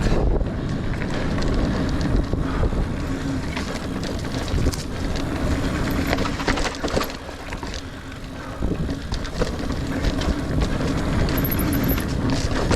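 Niner Air 9 RDO 29er mountain bike riding over rough dirt singletrack: tyre noise with the bike clattering and rattling over roots and rocks, and wind on the microphone. The noise eases briefly just past the middle.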